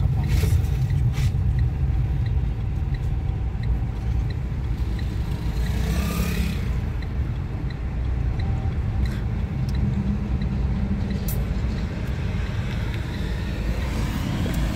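Steady low engine and road rumble inside a moving Renault Clio's cabin, with the right turn signal ticking evenly over it. A brief whoosh comes about six seconds in.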